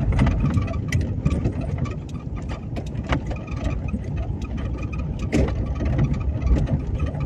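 Convertible car driving with its roof down: a steady low rumble of engine and road with wind buffeting the microphone.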